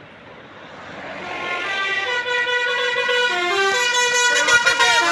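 Multi-tone bus 'telolet' horn of the basuri type playing a stepping, tune-like melody, getting louder over the first two seconds as the bus draws near, with a few sliding notes near the end.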